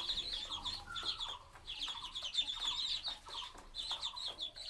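A brood of two-day-old ducklings peeping constantly, many short high calls overlapping.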